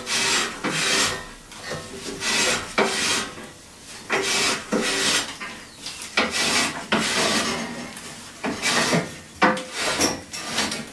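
Steel Acrow props being wound up to take the weight of a steel beam: the threaded collars turning on the props give a string of rasping metal-on-metal scrapes, about one a second.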